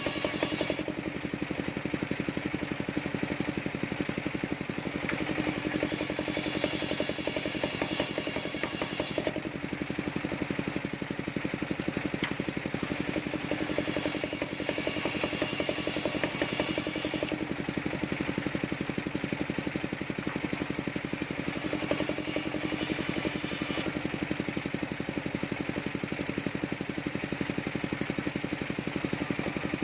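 Table-mounted circular saw ripping waru wood boards, its drive engine running steadily. The cutting sound shifts several times as boards go through the blade.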